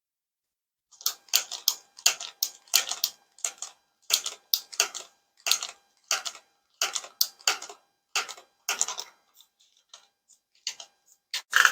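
Quick, rhythmic rubbing strokes of hands working over cloth and skin in a neck massage, about two or three short brushing sounds a second. They start after about a second, thin out after about nine seconds, and one louder stroke comes near the end.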